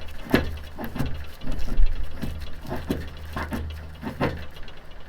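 Knife blade shaving curls down a wooden stick to make a feather stick: a run of quick carving strokes, about two a second.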